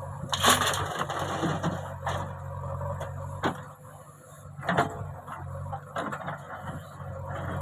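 JCB 3DX backhoe loader's diesel engine running steadily under work, with a loud scraping rush of bucket and murum about half a second in, then a few sharp clanks spaced a second or so apart.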